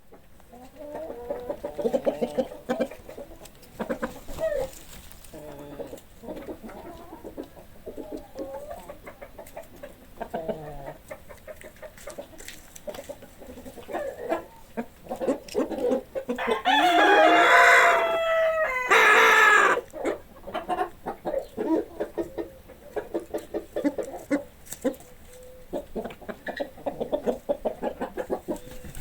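Farmyard chickens clucking on and off, with short repeated calls throughout. About two-thirds of the way in, a rooster crows once, long and loud, the loudest sound.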